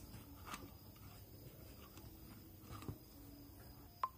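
Mostly quiet room tone with a few faint taps and clicks from handling the plastic enclosure of a water-pump automatic controller as it is closed up, and one sharper click near the end.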